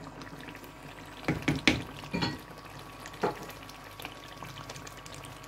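Silicone spatula stirring thick chicken curry in a clay cooking pot, with a handful of sharp knocks against the pot between about one and three seconds in.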